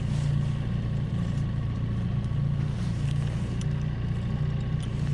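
Small outboard motor on a fishing boat running steadily at slow trolling speed for harling, a constant low hum.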